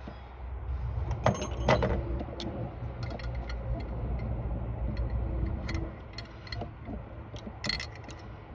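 Hand tools working on a small-block Chevy's water pump bolts: scattered metallic clicks and clinks, with two loud clanks about a second and a half in and another burst near the end, over a steady low rumble.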